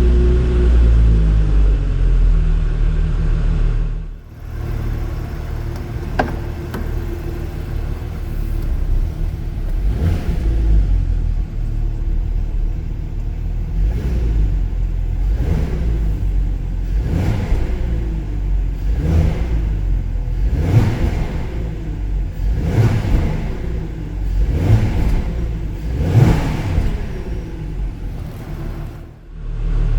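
Porsche Cayenne 957's 3.6-litre VR6 engine through the stock exhaust, running steadily at first. About four seconds in, after a cut, it is revved in a string of throttle blips, each a quick rise and fall in pitch a couple of seconds apart, before a cut back to a steady note near the end.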